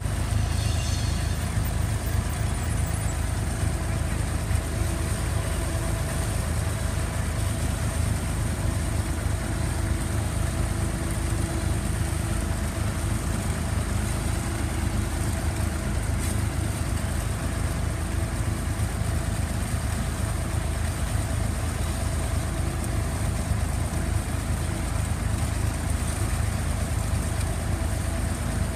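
Massey Ferguson 35X tractor engine running steadily under load, pulling a two-furrow mounted plough through the soil.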